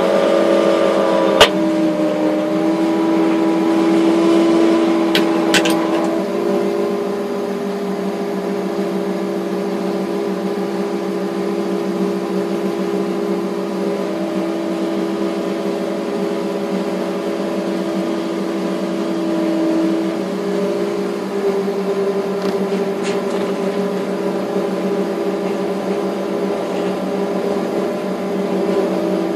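A Liebherr crane's engine and hydraulics running steadily under load as it lifts a heavy steel coil, heard from inside the cab. The drone shifts in pitch a few times, and there is one sharp click about a second and a half in.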